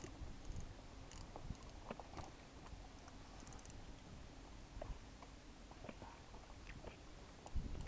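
Spinning reel being cranked while playing a hooked fish: faint irregular clicking and rubbing from the reel and rod handling, over a low steady rumble.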